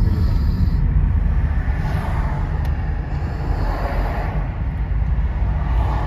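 Car cabin noise while driving: a steady low road and engine rumble.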